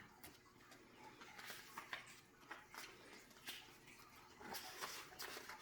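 Near silence with faint, scattered rustles and light taps of paper being handled, as the pages of a picture book are turned.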